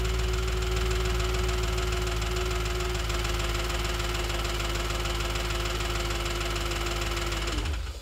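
Audi B7 S4's 4.2-litre V8 running steadily with a loud, fast ticking from the valvetrain, which the owner traces to the rear of bank 1 near the cam adjusters and cylinder 4. The engine stops near the end and the sound winds down.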